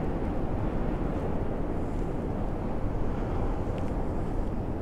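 Steady low rumbling background noise outdoors, with no distinct events.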